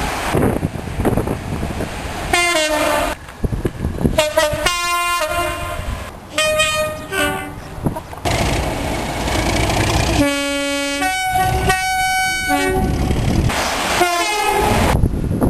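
Locomotive two-tone horn sounded in several short blasts, some stepping between the high and low note, over the rumble of a passing train.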